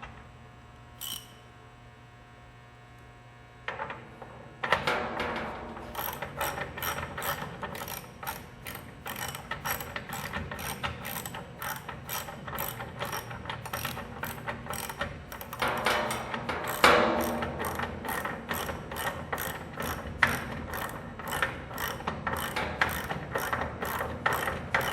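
Ratchet wrench clicking in a steady rhythm, about two to three clicks a second, as it turns the bolt on a steel drum clamp ring. The clicking starts after a few quieter seconds with a couple of knocks.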